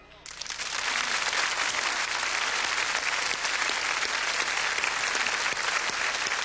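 Studio audience applauding, a dense steady clapping that starts a moment in, right after the song ends.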